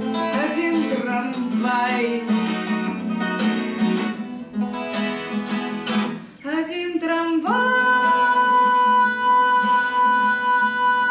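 A woman singing with a strummed twelve-string acoustic guitar. About two-thirds of the way in she holds one long, steady high note over the guitar.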